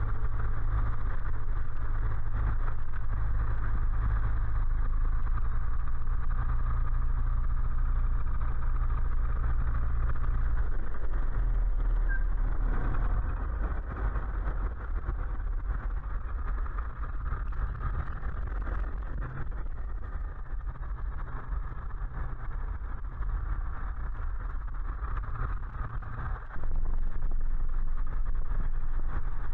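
Light aircraft engine running steadily, heard from inside the cockpit, with a deep drone. About 13 seconds in it drops to a lower, rougher level, then comes back up abruptly near the end.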